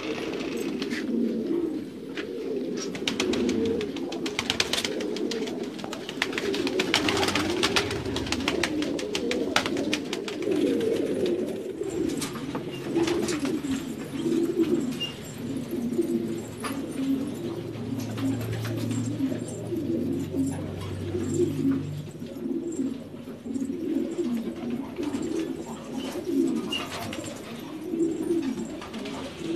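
A flock of domestic fancy pigeons cooing together, many overlapping coos forming a continuous chorus. Scattered light clicks sound over the first third.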